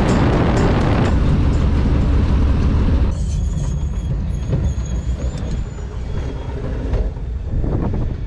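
Biplane engine and propeller running, a loud steady rumble that drops to a lower, quieter run about three seconds in.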